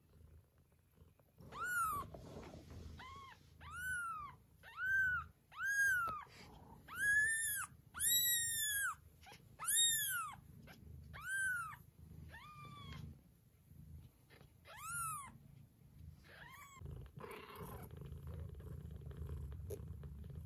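Newborn kitten mewing over and over, about a dozen high, thin cries, each rising and falling in pitch and lasting under a second. A mother cat's low, steady purr runs underneath and comes to the fore near the end.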